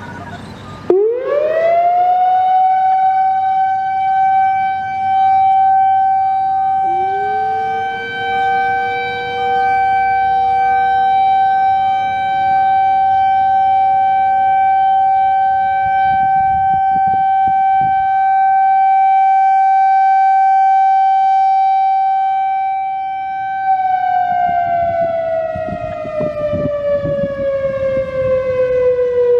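Whelen WPS-4004 electronic outdoor warning siren on an analog controller sounding its steady alert tone: it sweeps up quickly about a second in, holds one steady tone for about twenty seconds, then slides down in pitch near the end. A second, fainter siren with a lower tone joins about seven seconds in.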